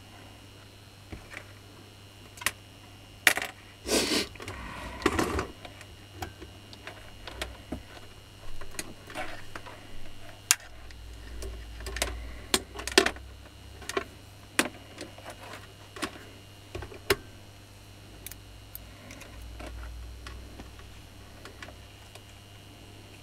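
Handling noise from the opened plastic handle housing of a Makita hammer and its wiring: irregular clicks, taps and light knocks as it is turned over in the hands, with a busier rustle about four to five seconds in, over a faint steady low hum.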